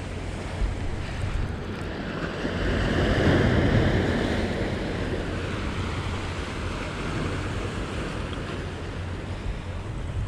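Sea waves washing in and breaking against breakwater rocks, with wind on the microphone; the surf swells loudest around three to four seconds in.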